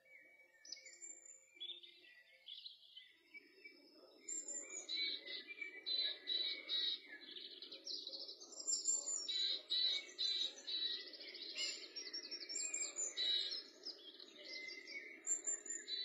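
Several songbirds chirping and trilling in quick repeated phrases, busiest from about four seconds in, over a steady low rushing noise that begins about three seconds in.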